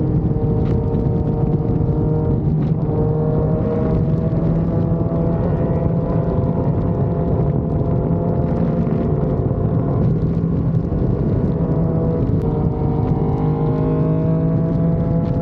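Big-bike motorcycle engine running at highway cruising speed under a heavy, steady rush of wind and road noise. The engine note drops about twelve seconds in, then climbs steadily as the bike accelerates.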